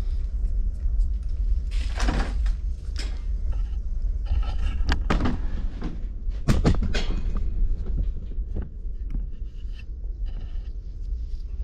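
Tools and small metal parts being handled and set down, a scatter of knocks and clicks with a few louder clunks about two, five and six to seven seconds in, over a steady low hum.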